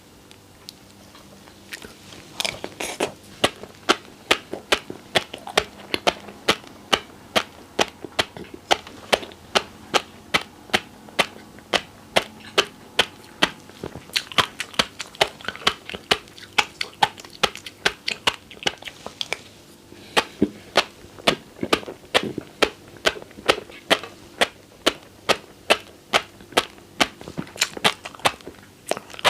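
Close-miked chewing of fish roe, the eggs popping in many sharp clicks with louder pops about twice a second, starting about two seconds in.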